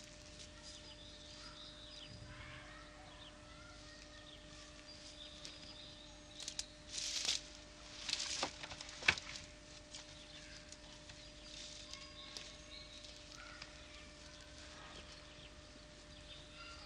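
Long wooden planks leaning against a wall being handled: two spells of rustling and scraping a little past the middle, then a sharp wooden knock. Faint bird chirps and a steady low hum sit underneath.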